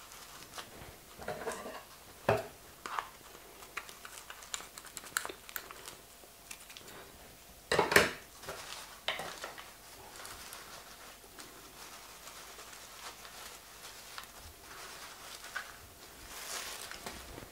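Brown paper packing rustling and crinkling as a potted plant is unwrapped by hand, with scattered small clicks and taps and one louder crackle about eight seconds in.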